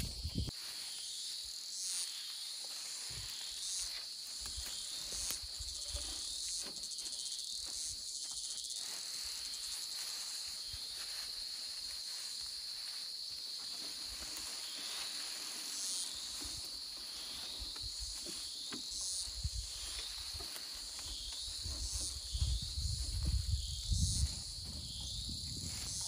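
A steady high-pitched insect chorus, with a call that pulses about once a second. Low rustling and knocks come in near the end.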